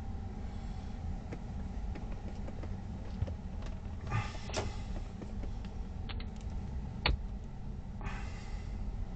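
Steady low rumble inside a car's cabin, with two short hissing swells and a couple of sharp clicks.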